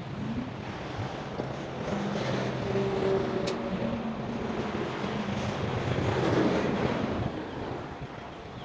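Outdoor road traffic: a vehicle passes, its engine and tyre noise swelling and then fading, with some wind on the microphone. There is a short tick partway through.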